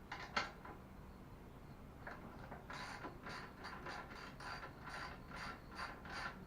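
Ratchet wrench being worked in a run of short, quick strokes, about two or three a second, after a couple of sharp clicks at the start, as the rear wheel's axle nuts are loosened.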